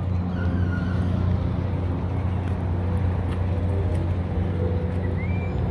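Steady low hum under outdoor background noise, with a few faint, distant voices rising and falling.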